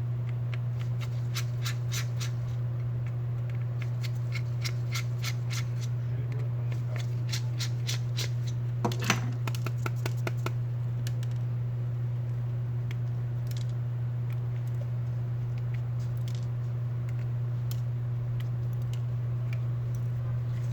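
Many small, sharp clicks and ticks from hand tools working on a smartphone's case and parts, thick for the first ten seconds or so, then sparse. Under them runs a steady low electrical hum.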